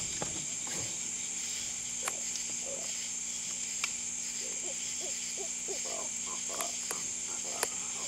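Night chorus of insects buzzing steadily and high-pitched, with a run of short croaks from frogs in the second half and a few sharp clicks.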